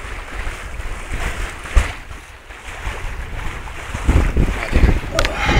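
Wind buffeting the microphone aboard a sailboat under sail, over the wash of small waves; the gusts grow louder near the end, with a brief sharp sound just before it.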